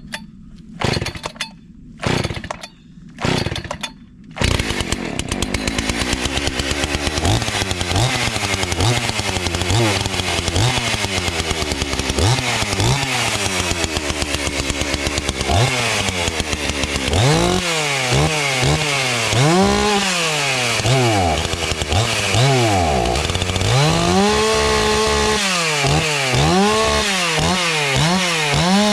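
Old 80 cc two-stroke chainsaw pull-started on choke: a few short bursts as it is pulled over, catching at about four seconds. It then runs and is revved up and down again and again, the revs swinging higher and more often toward the end, on a saw that the owner says needs tuning.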